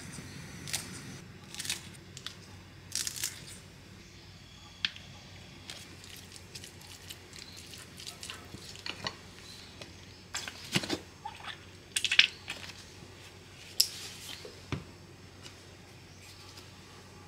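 Kitchen scissors snipping a green chili, then a wooden spoon and chopsticks clinking and scraping against a glass bowl as canned tuna is mixed, with a squeeze of mayonnaise from a plastic bottle. The sounds come as scattered short clicks and scrapes, busiest about 3 s in and again around 10 to 12 s.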